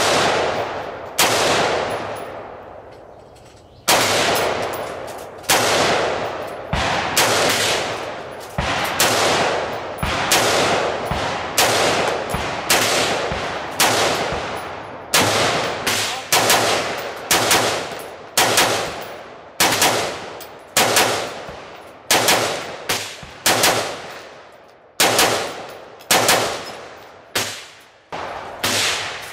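Gunshots in a long, quick series, some thirty of them, most less than a second apart, each ringing out with a long echo tail. There is a pause of a couple of seconds after the first two.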